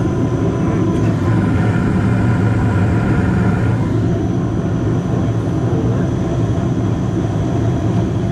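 Carrier gas furnace motor running after a call for heat is forced by jumping the thermostat's red and white terminals: a loud, steady drone with a low hum. A faint whine in it drops away about four seconds in.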